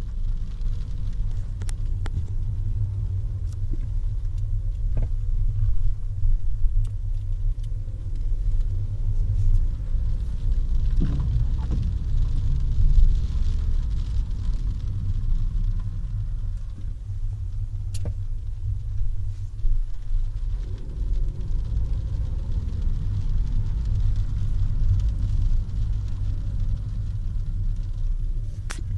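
Škoda Fabia TSI driving over a bumpy road: steady low road rumble with occasional sharp knocks or clicks from the car, the strange noise its owner is recording.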